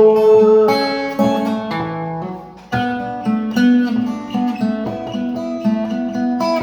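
Acoustic guitar playing the song's instrumental ending, picked and strummed notes in the key of A, with a short break a little before three seconds in before the playing resumes.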